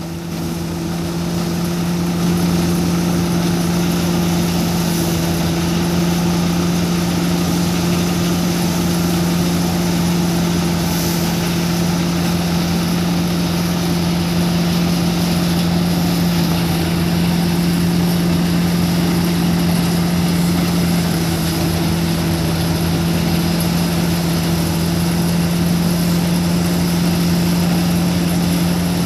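Tractor-driven groundnut thresher running steadily with the tractor engine, one continuous loud drone with a strong low hum, while bundles of peanut plants are fed into it.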